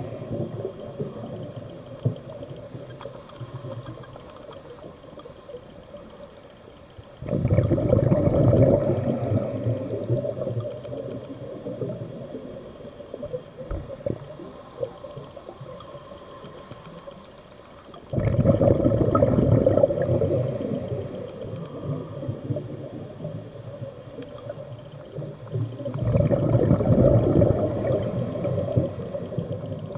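Scuba diver breathing through a regulator, heard underwater: three long rushes of exhaled bubbles, each starting abruptly and lasting a few seconds, with quieter stretches between them.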